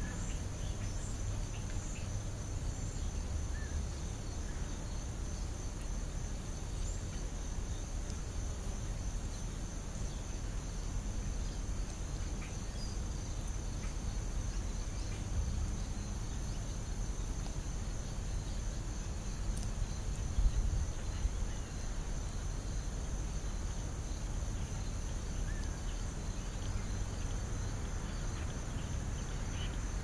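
Steady high-pitched insect chorus of outdoor insects, over a low steady rumble on the microphone, with one brief knock about two-thirds of the way through.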